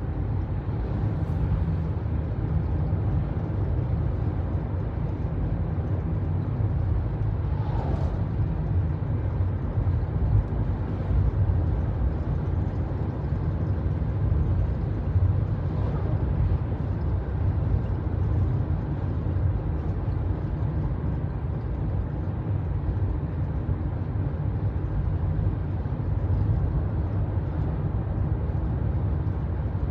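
Kia Forte running with a steady low rumble, recorded as an unusual noise from the car whose cause is not identified. Two brief faint sounds come through about 8 and 16 seconds in.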